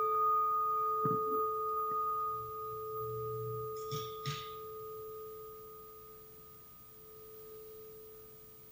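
Meditation bell ringing out after a strike, one steady tone with a fainter higher overtone, slowly fading away. A couple of faint short rustles about four seconds in.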